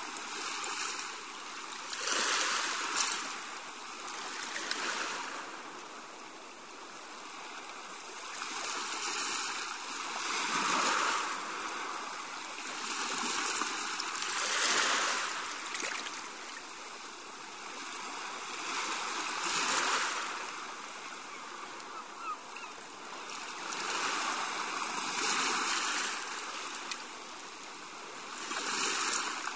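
Sea wash: waves washing in and drawing back on a shore, a steady hiss that swells and ebbs every two to three seconds.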